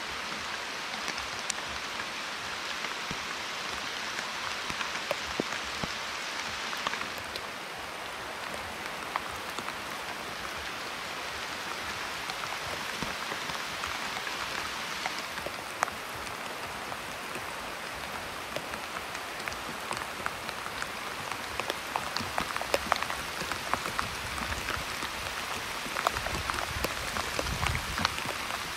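Steady rain falling on leaves, a constant hiss with the pattering of individual drops, which grows denser and sharper in the second half.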